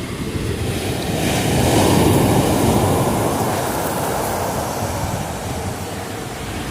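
Sea waves breaking on the beach: a deep rush of surf that swells to its loudest about two seconds in, then slowly eases.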